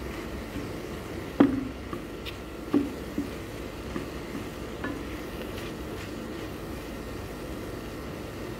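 Wooden spatula stirring rice into a minced chicken and green pepper filling in a pan, knocking and scraping against the pan several times over a steady low hiss; the loudest knock comes about a second and a half in.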